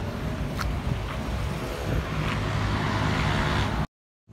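Road traffic: motor vehicles driving past on a paved road, a steady rumble of engine and tyre noise that swells for a moment, then cuts off suddenly near the end.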